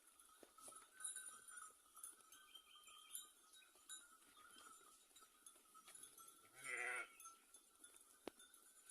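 A sheep bleats once, about seven seconds in, over faint background sound from the flock.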